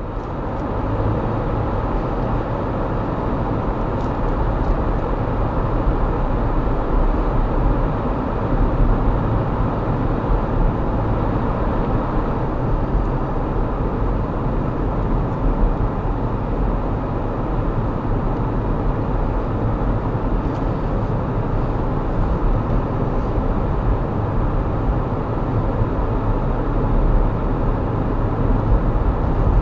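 Steady road and engine noise of a car being driven, heard from inside the cabin through a dashcam's built-in microphone: an even, mostly low-pitched noise.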